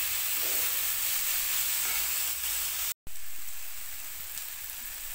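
Onion, tomato, ginger and green chilli frying in ghee in a steel kadhai, giving a steady sizzle as a wooden spatula stirs them: the masala being roasted until the tomato softens. About three seconds in, the sound drops out for an instant, then the sizzle carries on a little quieter.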